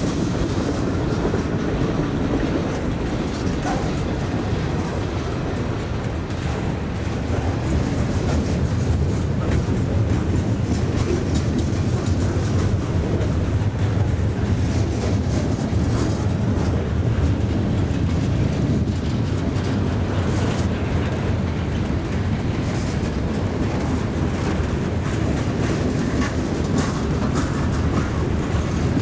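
Freight train's boxcars and gondolas rolling past close by: a steady rumble of steel wheels on rail, with scattered clicks and clatter.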